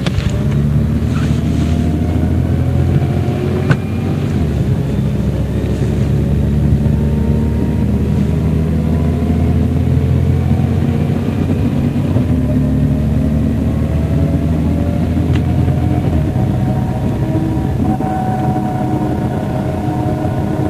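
MCW Metrobus double-decker's Cummins diesel engine running under way, heard from on board. A whine climbs slowly in pitch through the second half as the bus gathers speed. There is a sharp click at about four seconds and another at about fifteen seconds.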